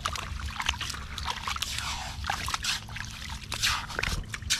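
Hands scooping and pressing wet mud and shallow seawater while digging open a mantis shrimp burrow: a run of irregular wet squelches and small splashes.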